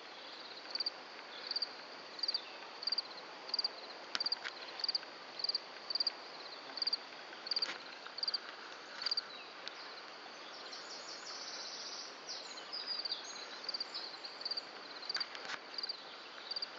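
A meadow insect chirping: a short high-pitched chirp repeated steadily about one and a half times a second, with a continuous high trill joining in for a second or two about two thirds of the way through. A few faint clicks are scattered through it.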